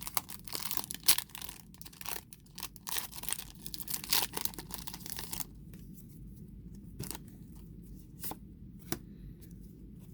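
Foil booster-pack wrapper being torn open and crinkled in the hands for about five seconds, then a few soft clicks as the cards are handled.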